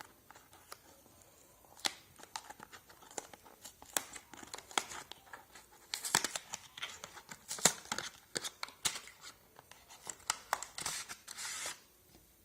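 A small cardboard retail box being opened by hand: scattered clicks, scrapes and short tearing sounds of card and packaging, with a longer crinkling rustle near the end.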